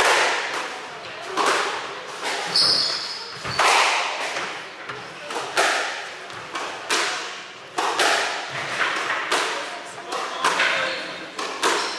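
A squash rally: the ball struck hard by rackets and hitting the court walls, sharp echoing cracks roughly once a second. A brief high squeak comes about three seconds in.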